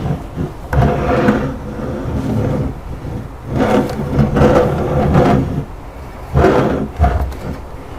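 Toy remote-control vehicle's motor and sound effects running in three short swells, about a second in, in the middle and near the end.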